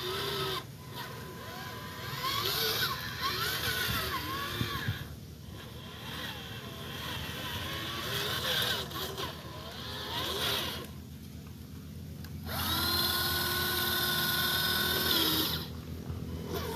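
Motor and gearbox of an RC Nissan scale dump truck whining, the pitch rising and falling with the throttle in short spurts. Near the end comes a steady, even whine for about three seconds as the tipper bed lifts to dump its load of soil.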